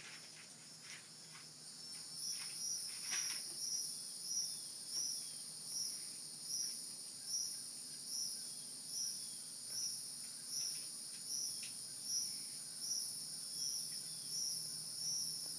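Insects chirping in a steady high-pitched chorus that swells in even pulses, about three every two seconds, from about two seconds in.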